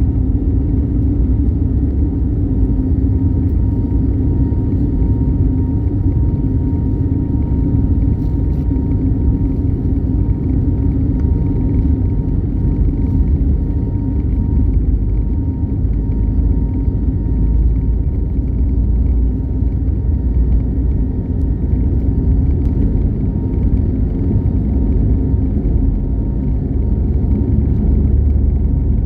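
Airliner cabin noise: a steady, loud jet-engine and airflow rumble with a faint, constant high whine on top.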